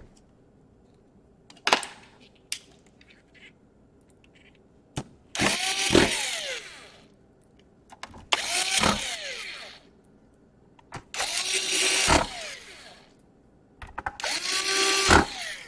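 A small electric screwdriver run four times in short bursts, its motor whining and changing pitch as it drives screws into the laptop's case. A couple of sharp clicks come first, like parts being handled or snapped into place.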